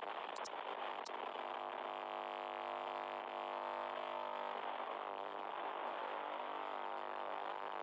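A steady, unchanging hum with many overtones.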